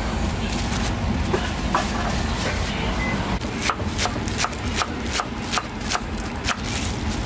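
A quick run of sharp knocks, about three to four a second, lasting some three seconds from about halfway in, over a steady low rumble of street traffic.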